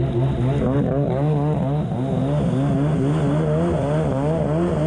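1990 Kawasaki JS550SX stand-up jet ski's two-stroke twin running under way through a Coffman half-pipe exhaust, its pitch wavering up and down a couple of times a second.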